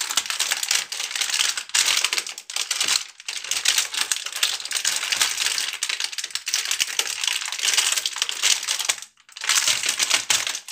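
Clear plastic wrapping on a toy doctor set crinkling as it is pulled and torn off by hand, with a short break about nine seconds in.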